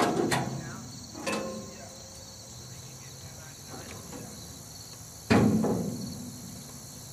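Steady high-pitched insect chorus, typical of crickets, throughout, broken by a few sudden loud knocks: two near the start, one about a second in and one about five seconds in.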